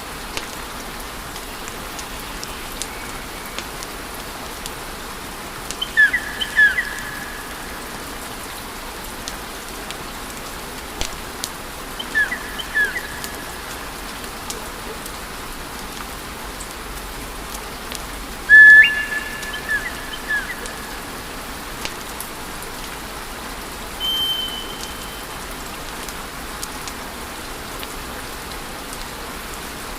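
Wood fire crackling steadily with scattered sharp pops. Short high whistling chirps cut through several times, mostly in pairs, one held for about half a second around two-thirds of the way through.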